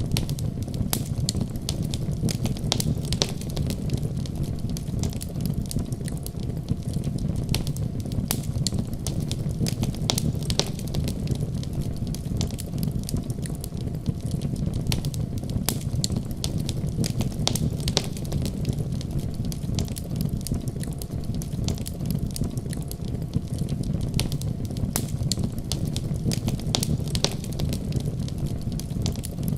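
Wood fire burning in a fireplace, logs crackling with frequent sharp, irregular pops over a steady low rumble.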